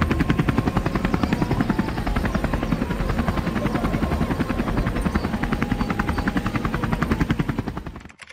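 Helicopter rotor blades beating in a fast, even rhythm, fading out near the end.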